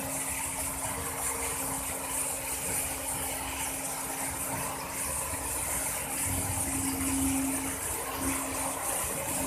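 Steady industrial machinery drone in an offshore pipeline welding station, with a constant low hum and a hiss over it.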